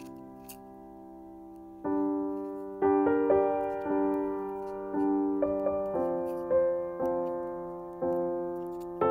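Slow, gentle piano music. A held chord fades away, then from about two seconds in chords and single notes are struck about once a second, each one dying away.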